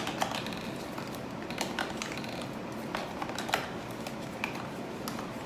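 Scattered light clicks and taps, irregular and about ten in all, as small skincare packets and bottles are set into a plastic mini fridge.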